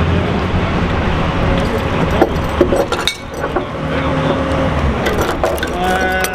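Engine of heavy lifting equipment running steadily, with a few sharp metallic clinks and knocks as the rock slab is handled.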